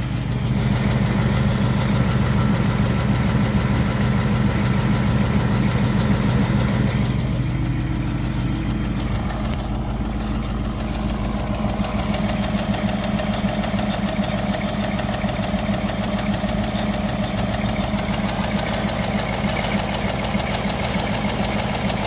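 2018 Ford Mustang GT's 5.0-litre Coyote V8 idling a few minutes after a cold start, with a rapid light ticking over the steady drone. This is the 'typewriter tick', which the owner is not sure what to make of.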